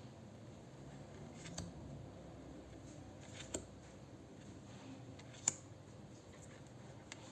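Quiet handling of a tarot deck and its packaging: scattered soft rustles and a few light clicks, the sharpest about five and a half seconds in.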